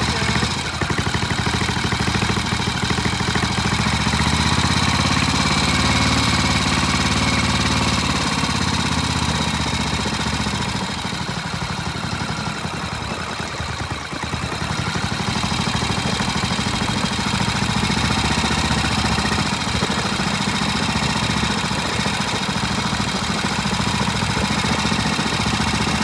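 Vintage British single-cylinder motorcycle engine running: its speed rises over the first several seconds, drops back to a lower, quieter run around the middle, then picks up again and holds steady.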